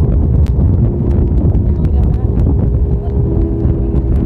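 A passenger boat's engine running steadily under way, a deep rumble with a steady hum, with wind buffeting the microphone.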